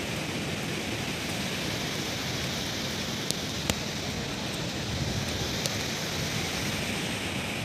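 Strong wind blowing steadily across a phone microphone, a constant rushing noise, with a few faint clicks around the middle.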